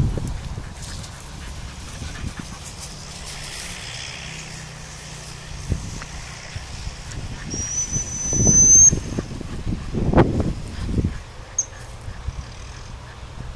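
A dog training whistle gives one steady, high blast of over a second about eight seconds in, and a short peep of the same pitch near the end. Underneath, wind on the microphone and rustling through grass rise to loud low rumbles between about 8 and 11 seconds.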